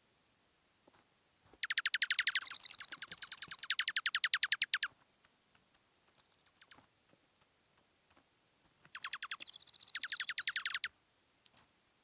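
Dark-eyed junco song: two rapid, even trills on one pitch, the first about three seconds long starting near the beginning, the second about two seconds long starting past the middle. Short sharp high ticks are scattered between them.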